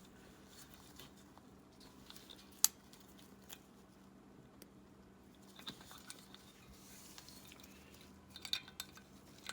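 Faint clicks and light metal handling as the choke assembly is worked off a Bing carburetor, with one sharp click about two and a half seconds in.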